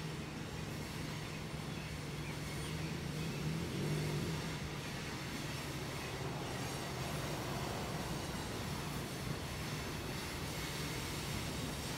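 Diesel freight locomotive engine running, a steady low drone over the noise of a passing train.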